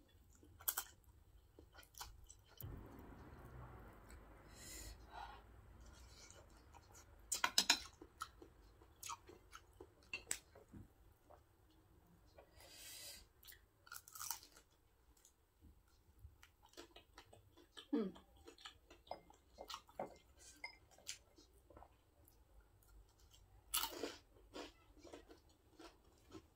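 A person chewing and slurping spicy noodles eaten with chopsticks, quiet close eating sounds with scattered small clicks and smacks.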